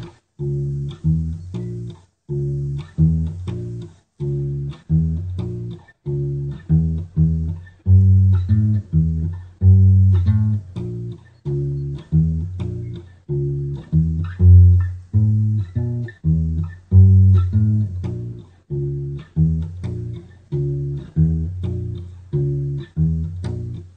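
Music: an instrumental bass riff of plucked low notes, each dying away, repeating a short phrase about every two seconds, with no voice over it.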